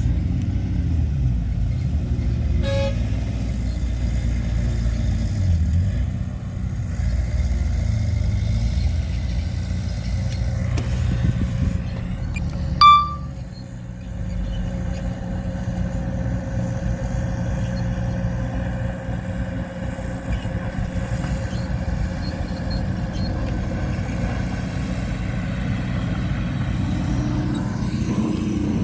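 Diesel engines of heavy earthmoving machinery running steadily with a low rumble. A brief, loud toot comes about 13 seconds in, and a fainter short one about 3 seconds in.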